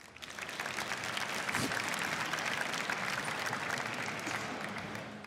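Audience applauding in a large hall, building up over the first second, holding steady and fading out near the end.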